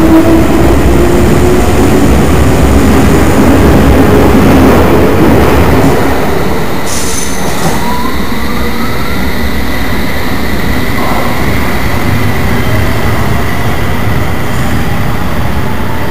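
London Underground sub-surface train pulling out past the platform at close range, its wheels and running gear rumbling heavily. Traction-motor whines rise in pitch as it accelerates away. The rumble eases after about six seconds, leaving the rising whine and a steady high tone as the train draws off round the curve.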